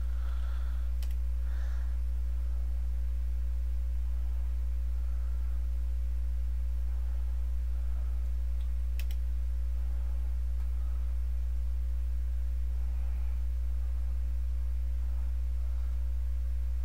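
Steady low electrical hum with a few short computer-keyboard clicks, a pair near the start and one about nine seconds in.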